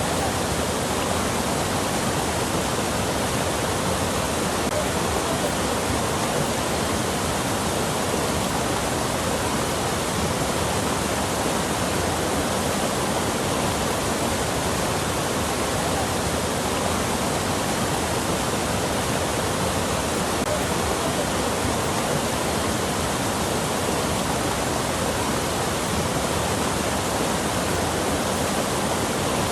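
Rushing water making a steady, unbroken sound with no drips, splashes or changes.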